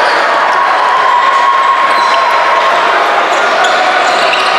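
A basketball being bounced on a gym court amid a steady din of crowd voices during a game.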